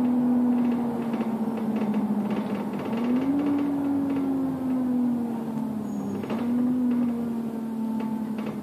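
Bus engine and driveline heard from on board, running with a steady whine that slowly sinks in pitch and steps back up twice as the bus slows in traffic.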